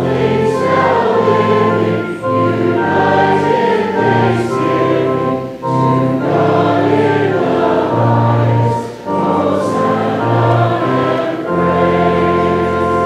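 Congregation singing a hymn in short phrases with organ accompaniment, settling onto a long held chord near the end.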